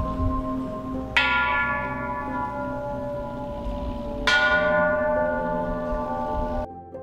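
Hanging temple bells struck by hand one after another: two strikes about three seconds apart, each ringing on with many overtones and slowly fading. The ringing cuts off suddenly shortly before the end.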